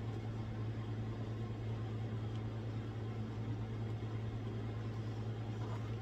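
A steady low hum with an even hiss behind it, unchanging throughout, like a running motor or appliance.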